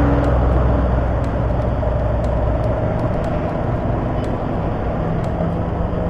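Motorcycle engine running steadily on the move, a low even hum under a constant rush of wind over the helmet-area microphone.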